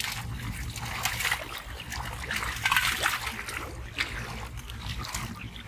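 Shallow muddy water splashing and sloshing irregularly as hands dig and grope through it.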